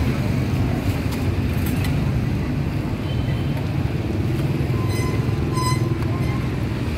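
Busy street ambience: a steady low rumble of traffic, with a couple of brief clinks about five seconds in.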